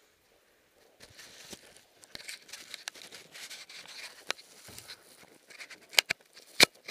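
Handling noise: fabric rustling and rubbing against the camera's microphone, with many small clicks. After about a second of near silence it starts, and a couple of sharper knocks come near the end.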